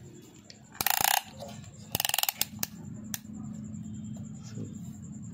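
Ratchet on a band-type piston ring compressor clicking in two short rapid runs, about one and two seconds in, then a few single metal clicks, while a piston is being fitted into the cylinder of a Toyota Corolla 16-valve engine. A low steady hum sits underneath from about halfway through.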